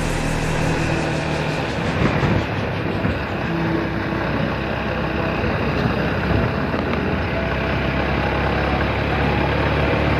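Motorcycle engine running at a steady cruise, its low hum under a constant rush of wind and road noise on the bike-mounted microphone.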